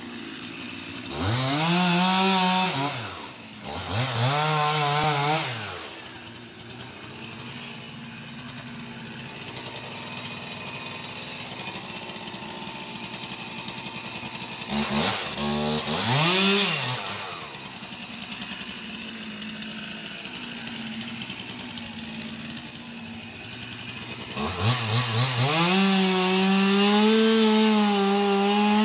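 Chainsaw revved up and down twice, then idling, then revved again. Near the end it is held at full throttle as it cuts into the base of a pine trunk.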